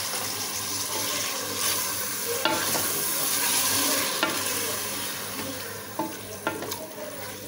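Tomato, onion and yogurt masala sizzling in hot oil in a pot as a metal spatula stirs it, with several light knocks of the spatula against the pot. The sizzle grows fainter over the second half.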